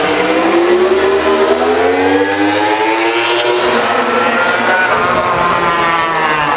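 Suzuki GSX-RR MotoGP racing motorcycle's inline-four engine at speed on track, its note climbing as it accelerates. After a cut about four seconds in, the note climbs again and falls away near the end.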